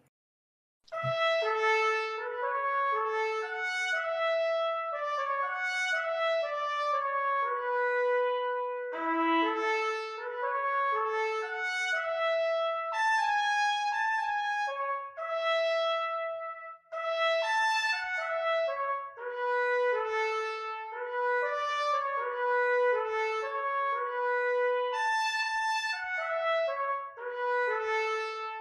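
Instrumental closing music: a melody of held notes over chords, starting about a second in.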